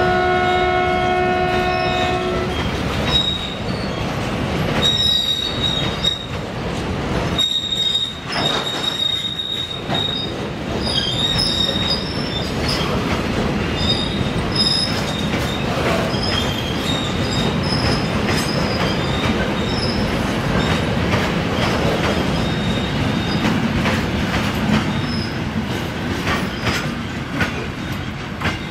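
Container freight train wagons rolling past close by: a steady rumble and rattle of wheels on the rails, with high-pitched wheel squeals coming and going. A train horn sounds at the start and stops about two seconds in.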